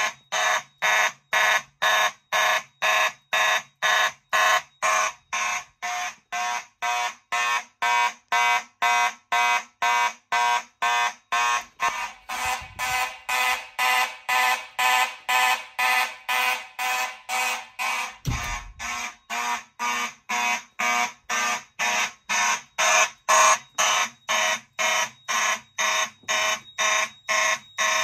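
Simplex mechanical fire alarm horns sounding in even pulses, about two a second. The system is in alarm after fog from a fog machine set off the smoke detector.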